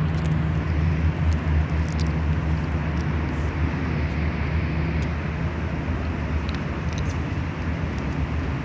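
A steady low mechanical hum, like an engine running, over an even background hiss, with a few faint clicks.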